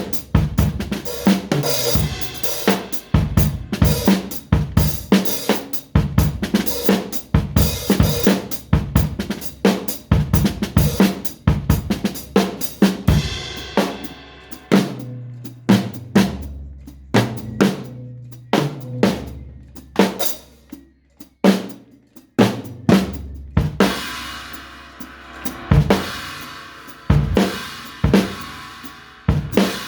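Drum kit playing a busy beat of kick, snare and hi-hat. About halfway through it thins out to sparser hits over low sustained bass notes, then picks up again with a wash of cymbal and hits about once a second.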